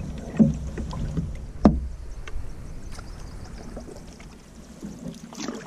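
Canoe being paddled: soft splashing and swishing of water from the paddle strokes along the hull, with one sharp knock about a second and a half in. A low wind rumble on the microphone dies away about two seconds in.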